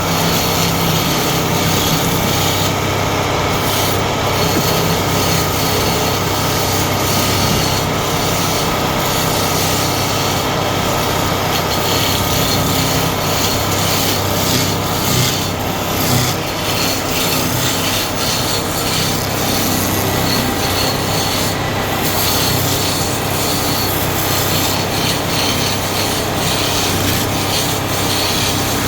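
Wood lathe running, its motor giving a steady hum under a continuous scraping rasp as the spinning wood is worked.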